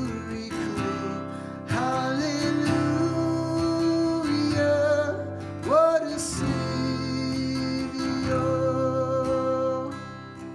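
Acoustic guitar music, with long held melody notes that waver slightly.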